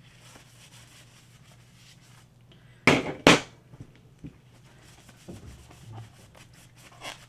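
Resin printer vat parts being cleaned with isopropyl alcohol: faint rubbing and handling with a few small clicks, and two short, loud hissing bursts about half a second apart near the middle.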